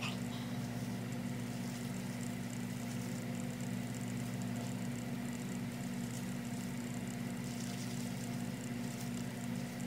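Steady low mechanical hum, unchanging throughout, with no clear handling sounds above it.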